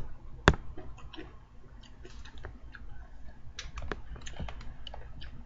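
Scattered small clicks and taps, with one sharp click about half a second in, as salad is eaten with a fork: the fork clicking against the dish and crunchy chewing of raw vegetables.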